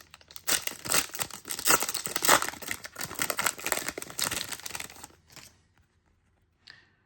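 Foil wrapper of a Goddess Story trading card pack being torn open and crinkled, a dense run of crackles that dies away about five seconds in.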